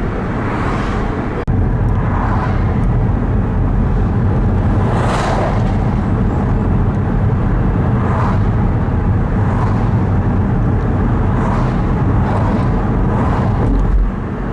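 Moving car's steady road and engine rumble, with a brief hissing swell every second or two. There is a short dropout about a second and a half in.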